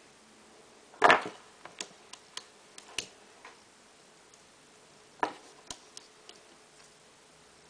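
Clicks and knocks of small hard parts being handled on a desk. A loud knock comes about a second in, followed by a string of lighter clicks. A second knock and a few more clicks come a little past five seconds.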